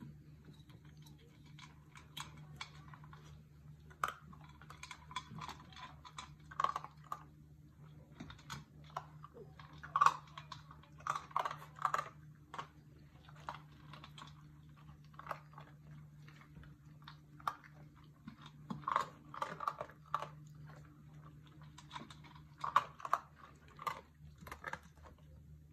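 German shepherd puppies eating dry kibble from a stainless steel bowl, with irregular crunching and clicking bursts over a steady low hum.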